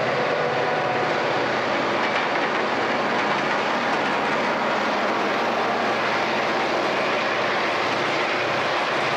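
Chicago & North Western diesel locomotives passing close by: a steady, loud mix of engine throb and wheel-on-rail noise.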